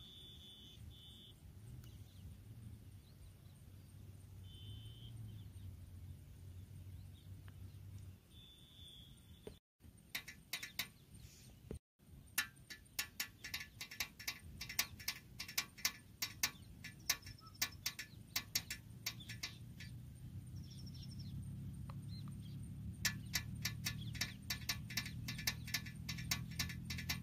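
Quick, irregular plastic clicking of a toy tractor being pushed by hand over gravel, starting about ten seconds in, over a faint low hum.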